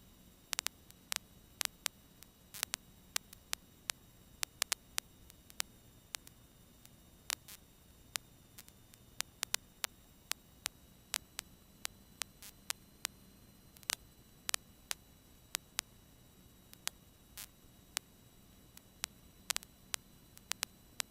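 Irregular sharp clicks and crackles of static, dozens of them, over a faint steady electrical hum in a light aircraft's intercom and radio audio feed between transmissions.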